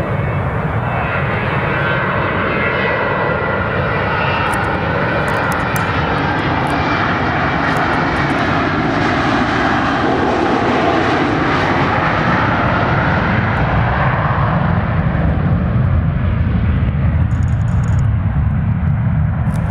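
Delta MD-88 jetliner's tail-mounted turbofan engines at takeoff power during the takeoff roll: a loud, steady jet roar. A whining tone falls in pitch as the jet passes, and a low rumble grows stronger in the second half as it rotates and lifts off.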